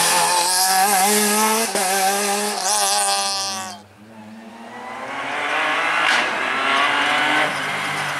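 Rally car at full speed on a tarmac stage, its engine revving hard with the pitch rising and falling through gear changes. About four seconds in the sound drops away almost to nothing, then another rally car's engine builds as it approaches.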